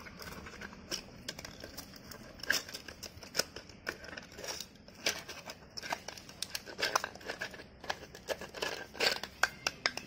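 Pug puppy chewing and gnawing a red toy ball: irregular clicks and crackly scraping of teeth on the ball, coming thicker in the second half.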